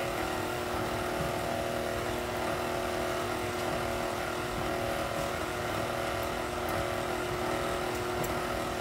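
Electric stand mixer running at a constant speed, a steady motor hum with several held tones, as it beats a loose cake batter in a stainless steel bowl.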